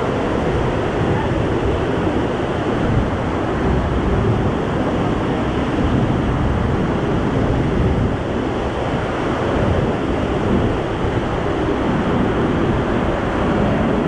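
Loud, steady rush of a waterfall pouring into a rock plunge pool close below.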